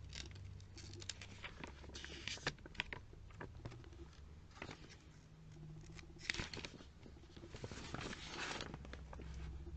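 Faint rustling of glossy catalogue pages being handled and turned: scattered small taps and scratches, with a few longer paper swishes about two, six and eight seconds in.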